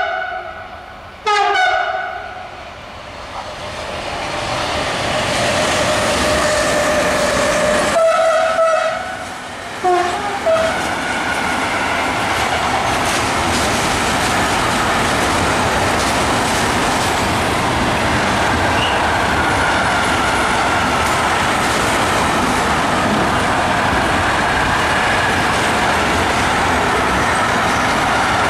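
Electric freight locomotive's horn sounding a short blast about a second in, a longer one about 8 seconds in and two quick toots at 10 seconds. Then a long intermodal freight train of tank and container wagons rolls past with steady wheel and rail noise.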